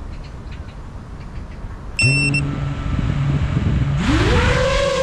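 FPV quadcopter on the ground: a short electronic beep about two seconds in as it arms, and its motors start spinning with a low steady hum. About a second before the end the throttle comes up and the motor whine rises sharply into a loud, slightly wavering buzz as it takes off.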